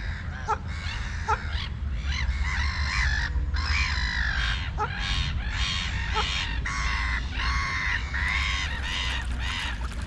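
Birds giving a long run of harsh, nasal calls, one after another in quick succession, over a steady low rumble.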